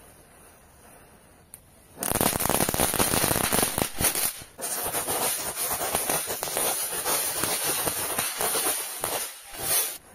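Diwali firework burning and spraying sparks: a loud, dense crackling rush that starts about two seconds in, drops out briefly near the middle, and cuts off suddenly near the end.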